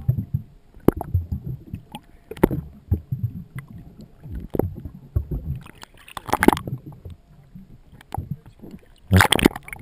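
Water sloshing and gurgling around a camera held just under the surface beside a kayak's hull, with irregular knocks and splashes. Two bigger splashy bursts come about six and nine seconds in.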